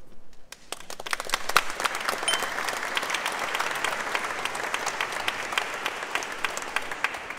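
Audience applauding, many hands clapping together, building up within the first second and then going on steadily.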